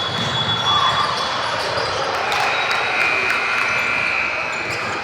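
Basketball game in a gym: a ball bouncing on the court and short sharp knocks over a steady crowd murmur, with a high squeak starting about two seconds in and lasting over a second.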